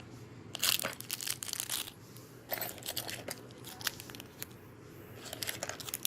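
Packaging crinkling and rustling as it is handled during unboxing, in several irregular bursts of crackles.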